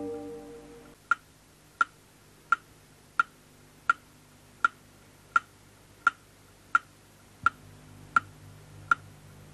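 Clock-like ticking: sharp, evenly spaced ticks, about three every two seconds, starting about a second in as a held synthesizer chord fades out.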